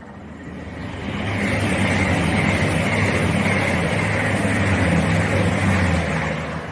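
Two coupled Voyager diesel multiple units, a Class 221 and a Class 220, passing through the station. Their diesel engines run under a rush of wheels and air that builds over the first second or so, holds loud, then eases off near the end.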